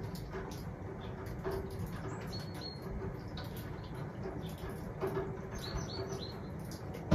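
Meltwater dripping from melting snow in scattered sharp drops, with small birds chirping in short high notes, a few at a time.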